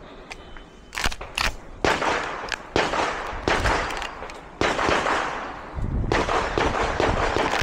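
Competition gunfire in a practical shooting stage: a brief high electronic tone from the shot timer, then about a second in a string of sharp shots at uneven intervals, roughly half a second to a second apart, each with an echoing tail.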